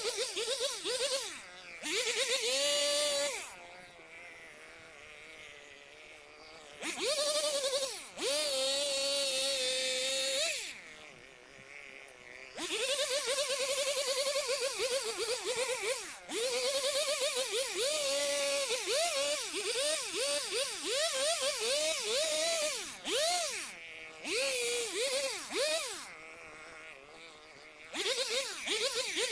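Small two-stroke engine of a vintage Stihl garden tool being worked: it runs at high revs, drops back to a quieter idle three times, and in the second half is blipped up and down in many short bursts.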